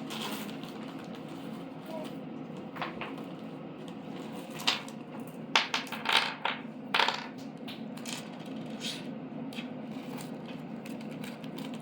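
Small metal kit parts clicking and clinking as they are handled and set down, with a cluster of sharp clicks in the middle, over a steady low hum.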